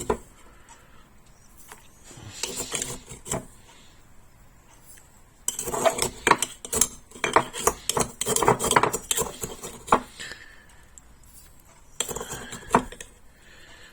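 Metal teaspoon clinking against coffee cups while sugar is spooned and stirred into the coffee: a short spell of clinks about two seconds in, a longer run of quick clinks from about halfway for some four seconds, and a brief spell near the end.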